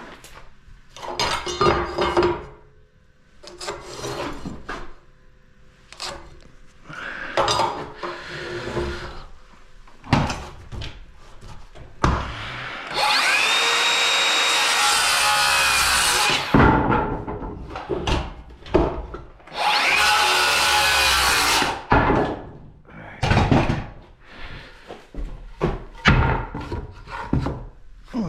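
Electric saw cutting a 2x4 stud to length, two cuts: a longer one and a shorter one a few seconds later, the pitch dropping as the blade winds down after the first. Around them come knocks and clatter of the lumber being handled and set down.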